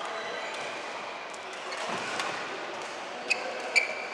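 Badminton racket strings striking a shuttlecock during a rally: sharp, ringing hits, two of them about half a second apart near the end, over the steady background noise of the sports hall.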